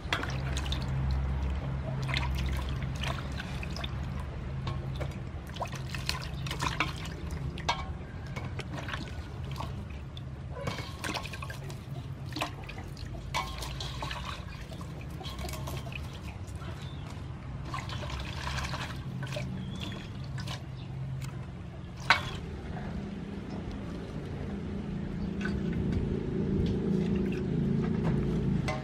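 Water splashing and trickling as hands swish and lift herbs, lemongrass and other vegetables in an aluminium basin of washing water, with one sharp knock about two-thirds of the way through.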